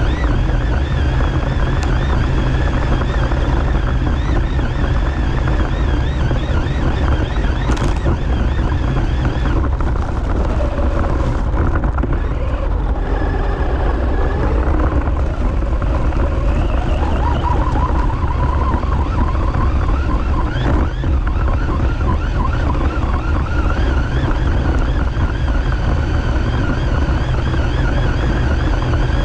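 Onboard sound of an Arrma short-course RC truck being driven: its electric motor and drivetrain whine, rising and falling with speed, over a heavy rumble of wind and ground noise on the truck-mounted microphone.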